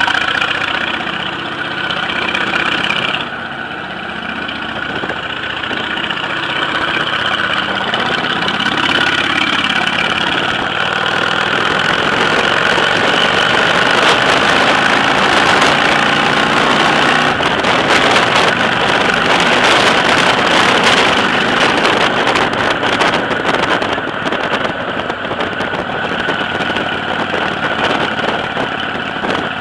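Motorcycle engine running while riding, its pitch rising and falling through the bends, with wind rushing over the microphone that flutters most strongly about halfway through.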